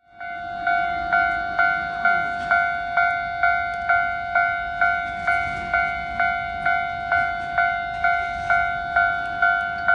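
Railway level crossing warning bell ringing in an even repeating beat, a little over two strikes a second, warning that a train is approaching.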